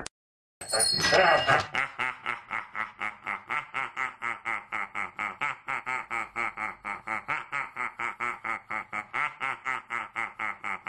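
A baby laughing in a long, even run of quick "ha-ha-ha" pulses, about five a second, starting after a brief moment of silence.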